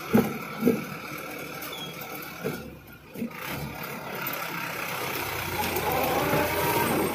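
Mahindra tractor's diesel engine running steadily, growing louder in the last few seconds. A few sharp knocks sound in the first three seconds.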